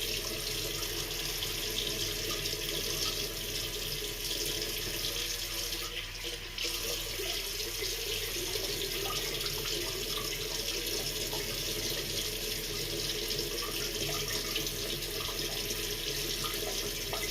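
Water running steadily from a tap into a sink, with a brief slackening of the flow about six seconds in.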